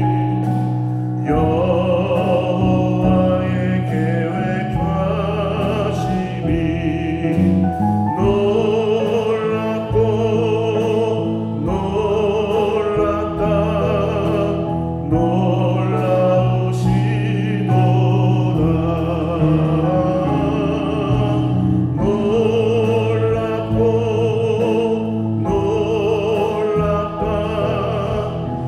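A vocal praise team sings a Korean gospel worship song with vibrato, backed by electric bass, keyboard and drums, with cymbal hits now and then.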